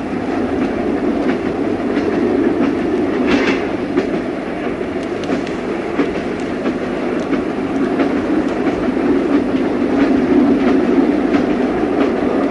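Train running along the track: a steady rumble with scattered clicks of the wheels over the rails, and a brief hiss about three seconds in.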